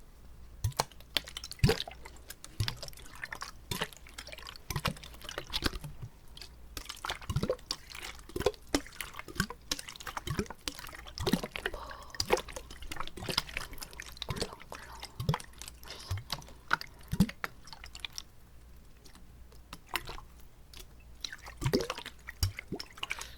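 Wet mouth sounds made with water held in the mouth: an irregular string of clicks, pops and small liquid plops, close to the microphone.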